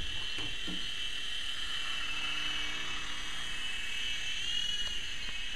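Small remote-control toy helicopter with stacked twin rotors hovering, its electric rotor motors giving a steady high whine. The pitch briefly rises and falls back about four and a half seconds in.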